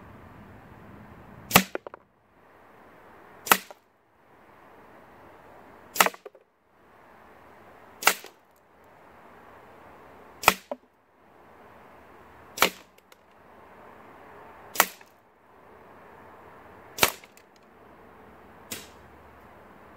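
Edgun Leshiy 2 semi-automatic .22 PCP air rifle firing pellets: eight sharp shots about two seconds apart, then a fainter crack near the end.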